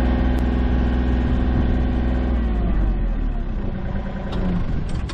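Mini excavator's diesel engine running close by. The engine note drops about halfway through.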